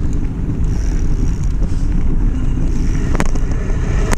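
Wind buffeting the microphone of a camera riding on a mountain bike, over the rumble of the tyres rolling on a dirt trail, with one sharp knock about three seconds in.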